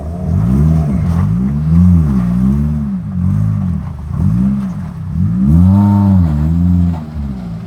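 Maruti Suzuki Gypsy 4x4's petrol engine revving under load while crawling over rock, the revs rising and falling about once a second as the throttle is worked.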